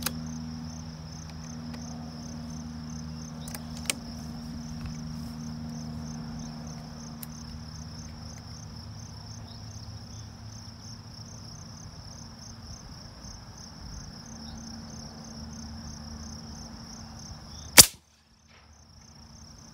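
Insects trilling steadily in the grass, then near the end a single sharp, loud shot from a .50-calibre AirForce Texan big-bore air rifle.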